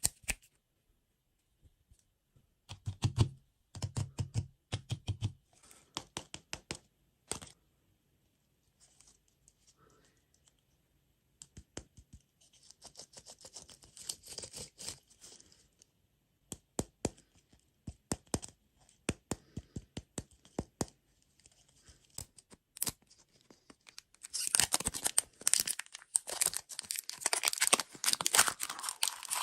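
Packaging being handled: scattered light taps and clicks, then from about 24 seconds in a dense spell of plastic crinkling and tearing as a wrapper is torn open.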